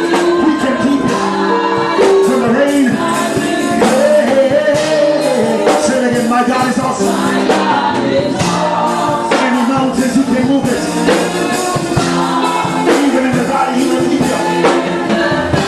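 Live gospel praise music: singers over a band with a steady beat.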